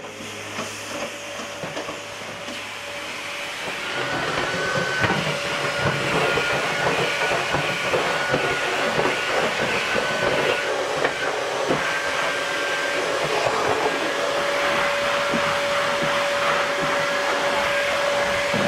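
Vacuum cleaner running steadily, a broad hiss with a motor whine, growing louder about four seconds in as the floor wand works the floor, with small knocks here and there.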